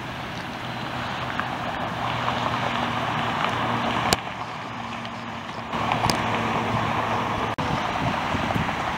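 Steady, distant rushing noise of jet aircraft engines around the airport. It breaks off abruptly about four seconds in and changes level again near six seconds, where separate recordings are spliced together.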